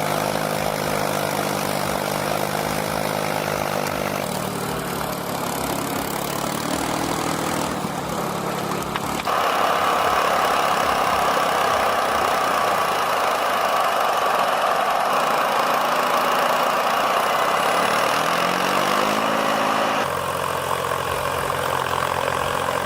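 Machinery engines running across several spliced clips: a steady engine hum, then from about nine seconds in a louder, harsher machine noise, with an engine note rising shortly before a cut near the end.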